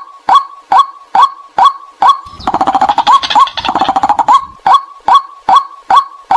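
Recorded white-breasted waterhen calls played as a lure: a loud, monotonous call repeated about twice a second. A denser run of rapid calls comes in about two seconds in and lasts about two seconds.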